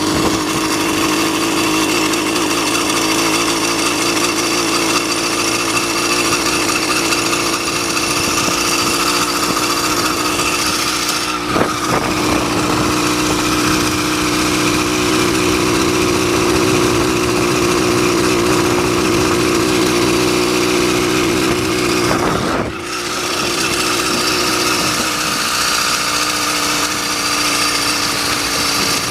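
80cc two-stroke motorized-bicycle engine running steadily at a fairly constant speed, with two brief dips about a third and three quarters of the way through and a slight drop in pitch near the end.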